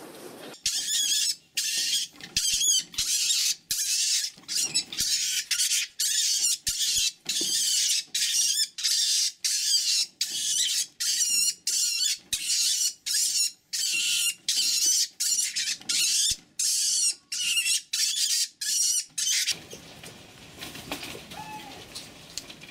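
Caged farmed mink shrieking over and over in short, high-pitched, wavering squeals, about two a second, which stop abruptly near the end.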